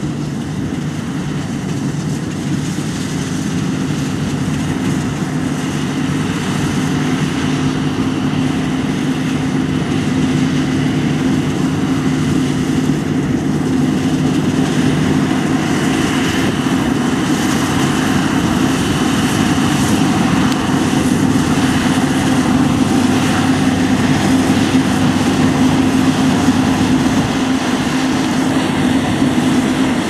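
A Claas Lexion 670 combine harvester running under load while cutting spring barley: a steady drone of engine and threshing machinery that grows gradually louder as it comes closer.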